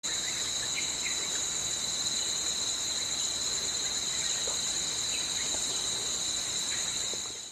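Steady, shrill chorus of forest insects, two unbroken high-pitched bands of buzzing, with a few faint chirps; it fades out at the very end.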